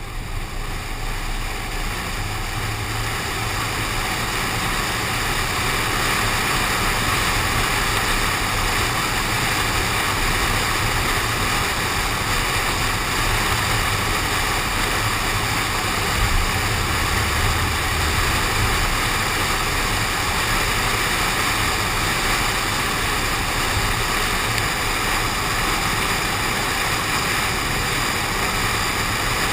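Steady rushing wind and tyre noise of a car driving on a wet road, picked up by a camera on the window. It builds over the first few seconds as the car gathers speed, then holds level.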